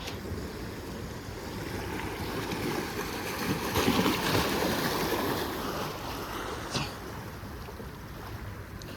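Water splashing and lapping as a steady rushing noise. It grows louder for a couple of seconds about four seconds in, and there is a short click near the end.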